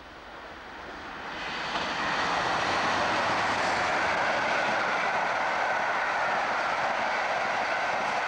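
A locomotive-hauled passenger train passing close at speed. The rushing and rumbling of its coaches on the rails builds over the first two seconds and then holds steady and loud.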